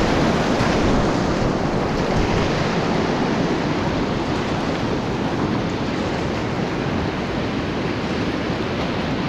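Whitewater of a river rapid rushing and churning around a kayak, a steady noise that eases a little over the first few seconds as the boat moves out of the foam.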